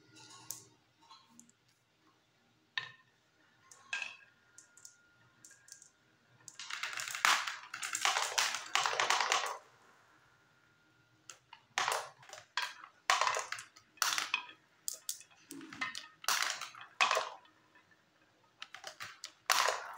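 Glass marbles rolling down grooved wooden ramps and through a plastic funnel and chutes. A dense stretch of rolling and clattering comes about seven seconds in, followed by a run of separate sharp clicks and clacks as marbles drop and knock together.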